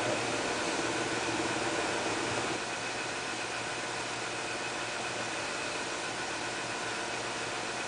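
Electric desk fan running: a steady whirring hiss over a low motor hum. It starts abruptly and eases slightly a couple of seconds in.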